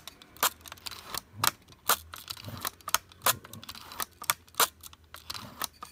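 Canon Model 7 rangefinder film camera being handled, giving a series of sharp metal clicks and snaps, about one or two a second.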